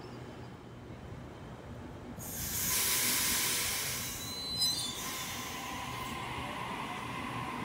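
Sydney Trains Waratah double-deck electric train pulling out of the platform. A sudden loud hiss of released air starts about two seconds in and lasts a couple of seconds, with a short sharp spike near its end. A softer hiss and a faint steady whine follow as the train gets moving.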